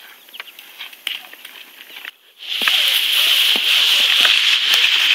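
Quiet scattered clicks, then after a brief drop-out about two seconds in, a loud, steady crackling rustle with clicks mixed in.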